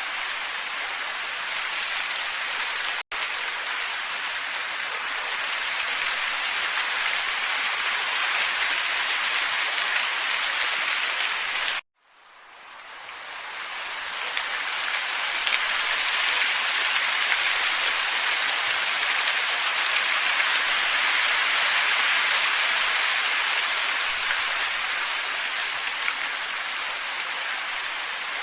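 Steady, even hiss of a looped nature ambience track, billed as calm wind. It cuts out for an instant about three seconds in, then drops out again about twelve seconds in and fades back up over a couple of seconds, where the loop is spliced.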